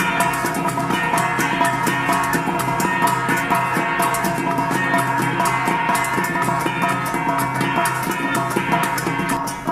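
Instrumental background music with a steady drum beat and sustained pitched notes.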